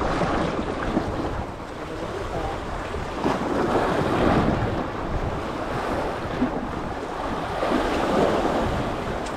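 Sea waves washing in, with wind rumbling on the microphone. The surf swells a little about four seconds in and again near eight seconds.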